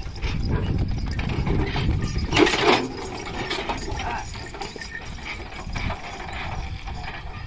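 Heavily loaded bullock cart rattling and creaking as a bullock draws it over soft, muddy ground, with a low rumble and scattered clicks and knocks. A louder burst comes about two and a half seconds in.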